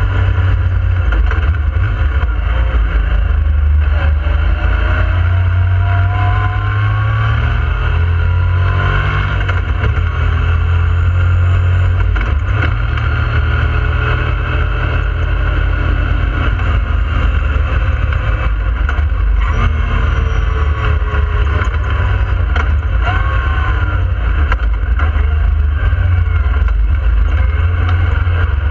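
2016 Yamaha YXZ1000R side-by-side's three-cylinder engine running under way, heard from inside the open cab, its note rising and falling several times as it speeds up and slows.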